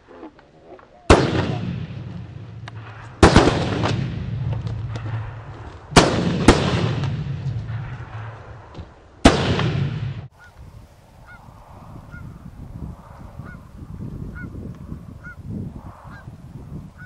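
Five shotgun blasts, two of them close together, each dying away over a second or two; the sound cuts off abruptly after the last. Then Canada geese honking repeatedly.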